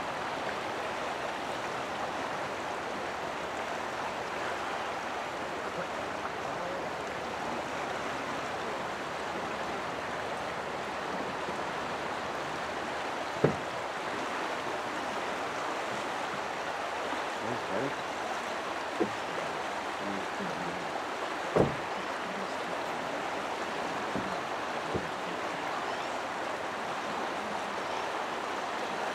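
Steady rush of a flowing river, with a couple of brief knocks, one about a third of the way in and one about two thirds in.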